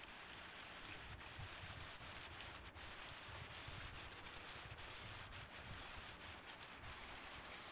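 Faint, steady rushing of a small waterfall and the streams running into it, with an uneven low rumble of wind on the camcorder microphone.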